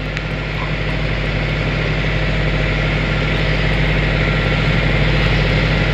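A machine motor running steadily: a constant low hum under an even hiss, growing slightly louder.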